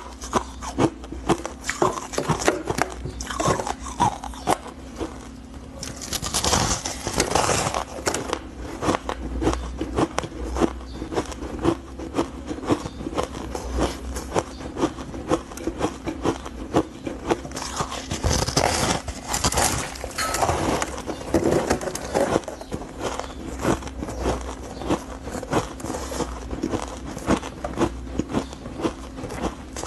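Powdery frozen ice crunching close to a clip-on microphone as it is bitten and chewed: a dense run of sharp cracks and crunches, with longer, louder crumbling rushes about six seconds in and again around twenty seconds.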